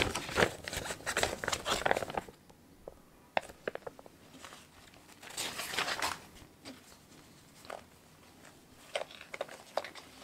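Rustling and crinkling of a cross-stitch kit's paper chart and plastic wrapping as they are handled. A dense spell of rustling at the start and another about five to six seconds in, with scattered light taps between.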